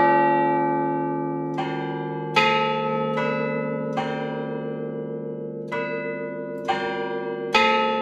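Clock tower chime bells struck by the clock's hammers, sounding a chime of several notes about a second apart, each bell ringing on under the next. A short pause a little over halfway through splits the strikes into two phrases.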